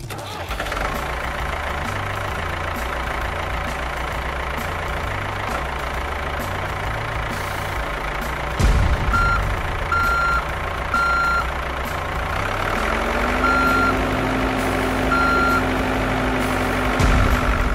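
Truck sound effect dubbed over a toy dump truck: a steady engine running, with a reversing alarm beeping five times in the second half. There are a couple of thumps, one near the middle and one near the end.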